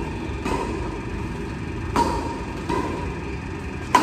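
Badminton rackets striking the shuttlecock in a rally, about four sharp hits spaced a second or so apart, each with a short ping and echo. The loudest hit comes near the end.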